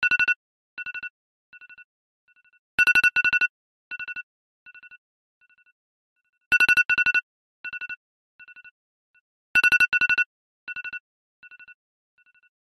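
Smartphone alarm ringing: a pair of loud, high beeps repeating about every three seconds, each pair trailed by a few fainter, fading echoes of the beep.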